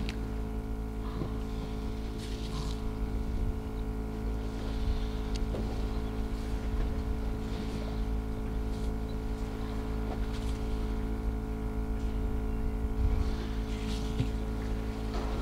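An engine idling steadily, its hum holding a constant pitch, over a low rumble, with brief faint high-pitched sounds now and then.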